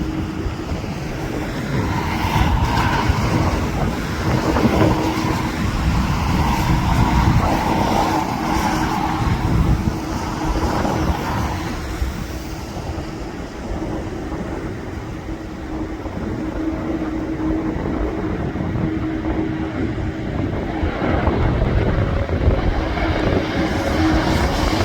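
Wind buffeting the microphone over the rumble of aircraft engines, with a steady engine whine that fades out about twenty seconds in.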